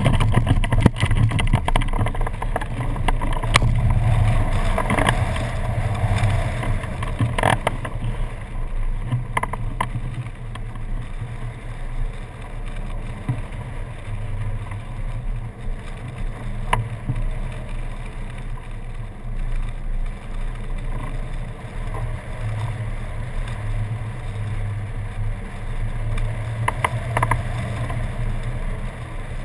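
Wind rushing over a camera mounted on a hang glider in flight: a steady low rush, louder in the first seconds, broken by a few short sharp knocks.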